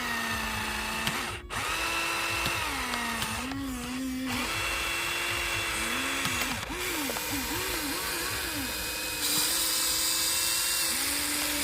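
Small electric motor whining steadily, its pitch dipping and rising as the load changes, with a quick run of up-and-down swoops in the middle; a hiss joins near the end.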